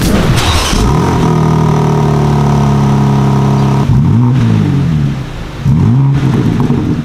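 BMW G80 M3 Competition's S58 twin-turbo straight-six on its stock exhaust, rising in pitch in the first second, then holding a steady raised idle. About four seconds in and again near six seconds it is blipped, each rev rising and falling within about half a second.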